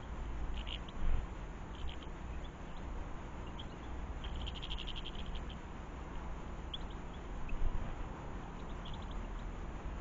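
Small garden birds, house sparrows and goldfinches, calling with short scattered chirps and a rapid twittering run about four to five seconds in, over a steady low rumble that swells briefly about a second in and again near the end.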